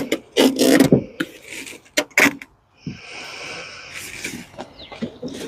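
Sharp knocks, clicks and scraping from work on a car's interior door panel as it is pried loose, with a steady rasping squeak lasting about a second and a half in the middle.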